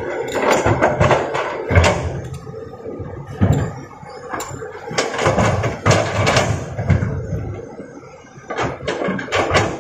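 Toys being handled by hand: irregular knocks, clatters and scrapes, in clusters about a second apart.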